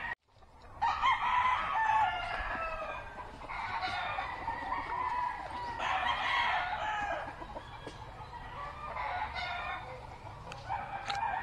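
Roosters crowing again and again, about five long crows in a row, after a brief silent break right at the start.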